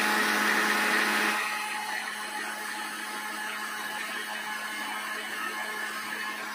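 Electric mixer grinder running steadily, blending milk, ice cream, sugar and cardamom into a milkshake with the lid on. Its hum is louder for the first second and a half, then settles to a lower, even level.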